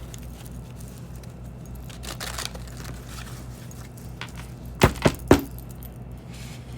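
A tarot deck being handled and shuffled, with a soft rustle, then three sharp knocks in quick succession about five seconds in, over a low steady hum.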